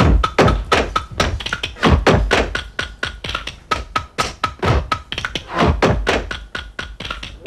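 Fast rhythmic clacking of a pair of wooden spoons played against a leather-shorted thigh, mixed with Schuhplattler dancers' hand slaps on thighs and shoes and heavy boot stamps about once a second.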